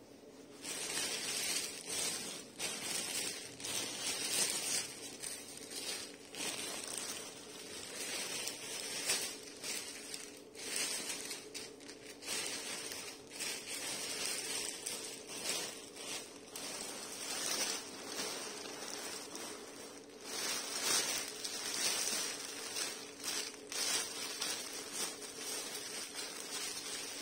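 Clear plastic wrap crinkling and rustling irregularly as it is handled around a rolled fabric package.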